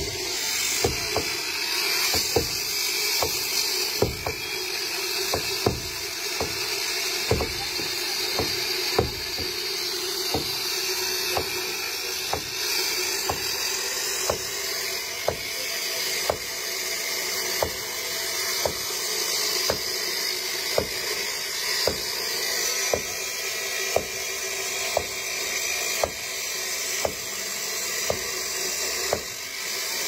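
Electric concrete slab cutter with a 14-inch blade, wet-cutting through a concrete roof slab: a steady high grinding hiss, with a regular knock a little under twice a second.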